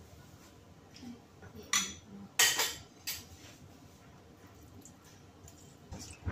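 Sharp clinks of kitchen utensils and containers, three of them close together about two seconds in, the middle one loudest. Near the end a slotted spatula knocks in a nonstick wok.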